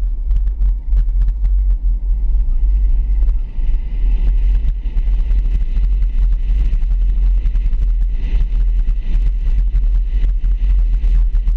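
Vehicle driving down a street, heard as a heavy steady rumble of wind buffeting and road noise on a hood-mounted microphone, with frequent small clicks.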